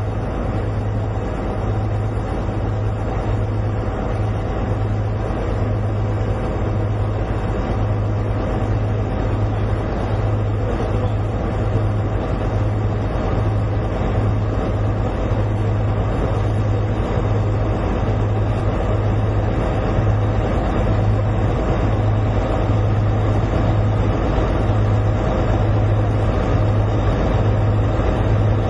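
Steady low rumble of a large running machine or engine, with a regular throb.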